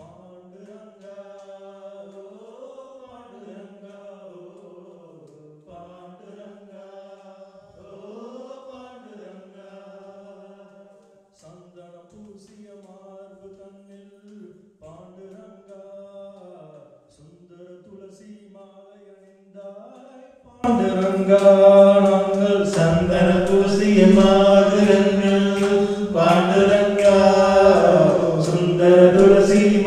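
Chanting voices. For about two-thirds of the time a single faint chant holds near one note with slow rises and falls. Then it turns suddenly much louder and fuller, as several voices chanting together.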